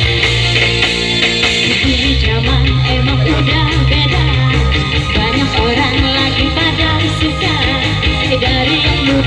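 Live band music with guitar, bass and a steady beat. A wavering lead melody comes in about two seconds in.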